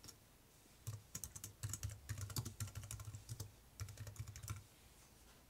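Typing on a computer keyboard: a quick, uneven run of key clicks starting about a second in and stopping near the end.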